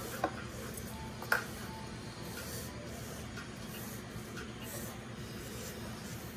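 Pencil lead scratching and rubbing faintly on sketchbook paper as a drawing is sketched, with two light ticks about a quarter second and a second and a third in, over a low steady hum.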